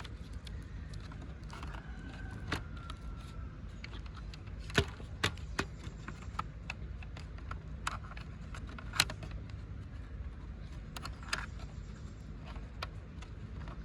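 Scattered clicks and taps of laptop plastic parts and cables being handled as the Dell Latitude E5510's display assembly is worked free of its base, with two louder knocks about five and nine seconds in, over a steady low hum.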